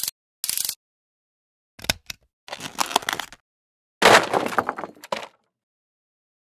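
Sound effects for an animated title sequence. Two short noisy swishes come first, then a quick run of clicks and a rattling stretch. The loudest burst of noise comes about four seconds in and fades within about a second.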